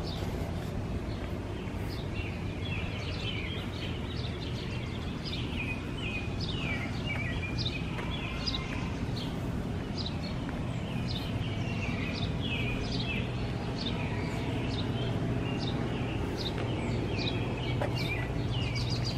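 Birds chirping, many short quick calls repeating throughout, over a steady low hum.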